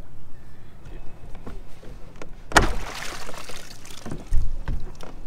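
Water splashing around a small kayak: a sudden splash about two and a half seconds in that washes on for about a second, then a low thump a little later.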